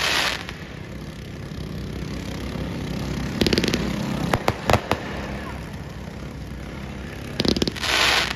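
Fireworks display: a crackling burst at the start, more crackling about three and a half seconds in followed by four sharp bangs in quick succession, and another crackle and hiss near the end.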